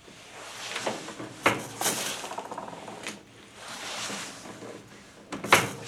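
RCBS Mini Grand shotshell reloading press being worked by hand. Sharp metallic clacks come as the handle and tooling strike, with a loud one about a second and a half in and another near the end. Between them are scraping, sliding sounds of shells and parts moving through the press stations.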